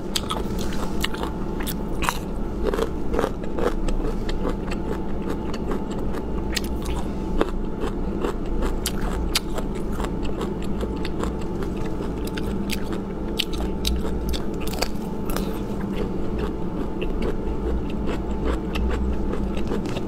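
Close-miked chewing of crisp, spicy bamboo shoot pieces: many crunches and snaps, several a second, over a steady low hum.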